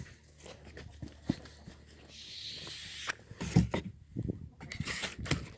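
Footsteps and rustling in the wood shavings of a chicken-coop floor, with scattered knocks and a few louder thumps.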